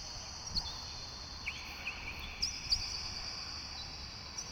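Wind rumbling on the microphone, with short high-pitched chirps of small birds scattered through it every half second to a second and a faint steady high-pitched hum.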